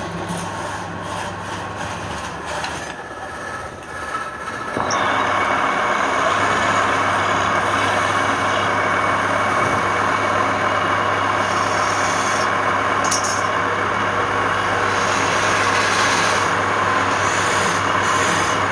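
Wood lathe running with a turning tool cutting the spinning wood; the cutting noise gets louder about five seconds in and then holds steady over the motor's hum.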